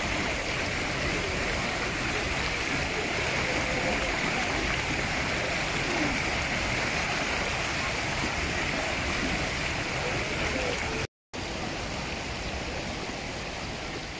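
Shallow mountain river water rushing steadily over rocks and small rapids. It breaks off for a moment about eleven seconds in, then carries on a little quieter.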